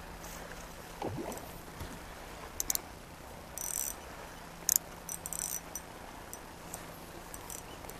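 Fishing reel being wound in against a hooked fish, with a few brief high crackles about three to five and a half seconds in, over a faint steady low hum.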